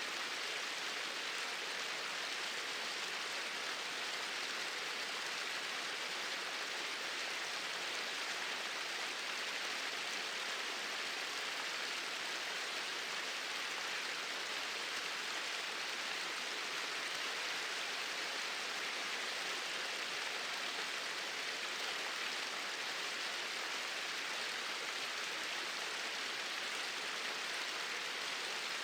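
Water pouring over two small waterfalls: a steady, even rush of falling water with no breaks or changes.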